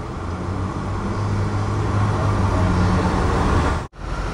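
Street traffic with a heavy vehicle's engine running close by, a low hum that grows louder over a few seconds. The sound cuts out for an instant near the end.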